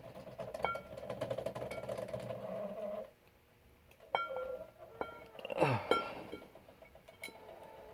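Small metallic clicks and ringing pings from the padlock, chain and hanging weights being handled during lock picking, with a short falling groan of strain about six seconds in.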